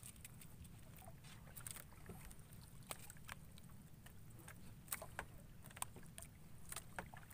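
Faint water lapping and small splashes around a small outrigger boat, with scattered light knocks and a steady low rumble.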